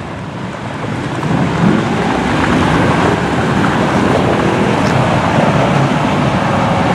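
Steady noise of a procession of motorcycles and other vehicles passing on the highway, growing louder about a second in, with wind on the microphone.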